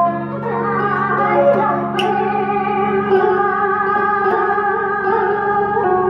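A woman singing a slow Vietnamese song into a microphone over instrumental accompaniment, holding long, wavering notes.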